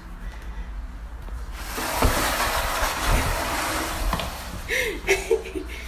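Plastic milk crate scraping and bumping across a tile floor as a toddler pushes another child sitting in it, a rough hissy scrape for a few seconds, with a short child's vocal sound near the end.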